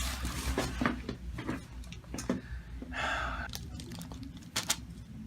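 Chiropractic adjustment: a few short, sharp joint cracks and clicks, the loudest pair about four and a half seconds in, with rustling and a breathy exhale about three seconds in.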